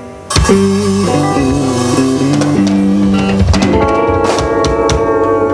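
Live band playing guitar and drum kit, coming back in together with a loud hit about a third of a second in after a brief lull, then held guitar notes over the drums.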